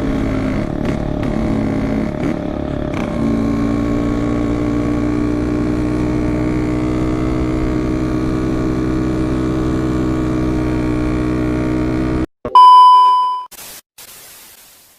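Yamaha RX-King's single-cylinder two-stroke engine running steadily, with a brief dip in pitch about two to three seconds in. It cuts off suddenly near the end, followed by a loud, short electronic beep and a fading hiss.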